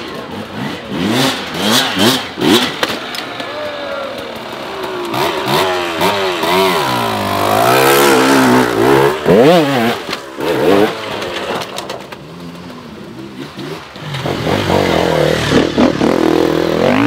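Hard enduro dirt bike engines revving hard, the pitch rising and falling again and again as riders work up a rough forest climb; the revving eases for a couple of seconds past the middle, then picks up again near the end.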